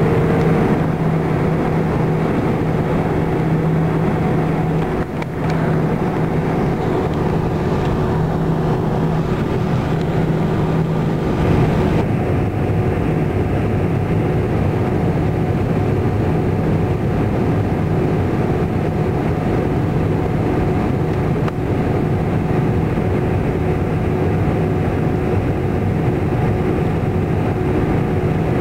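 Airbus A319 cabin noise in flight: the jet engines and rushing airflow make a steady, loud noise with several steady engine tones in it. The high hiss eases a little about twelve seconds in, and one of the tones shifts at the same moment.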